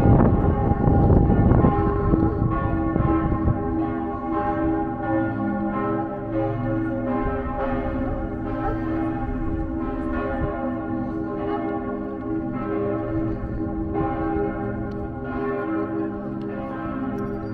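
Several church bells ringing together in a full peal, their overlapping strikes repeating about once a second. A loud rushing noise covers the first two seconds, then drops away.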